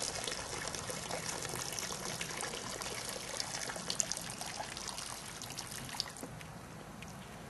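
A man urinating into shallow standing water: a steady trickling splash, with a few small splashy clicks, that tapers off about six seconds in.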